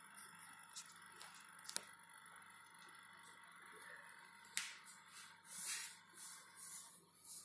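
Faint scuffling and rustling of a mother cat and kitten wrestling on a carpeted floor, with a few soft clicks and louder rustles about five to six seconds in, over a faint steady hum.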